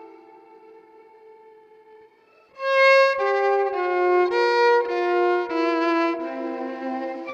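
Violin music: a held note fades away, then about two and a half seconds in the violin comes back in loudly with a run of separate bowed notes.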